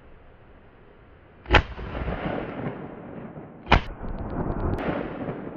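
.410 bore magnum shotgun fired twice at clay targets, the shots a little over two seconds apart. Each shot is followed by a long rolling echo.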